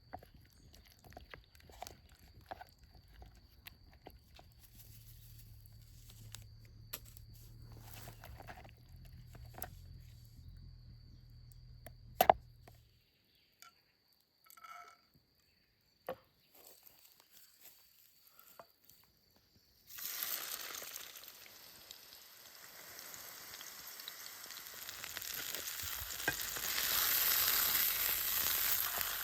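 Scattered small clicks and knocks of handling camp gear, with one sharp knock; after a few seconds of near silence, a burger sizzling in a hot pan starts abruptly about two-thirds through and grows louder.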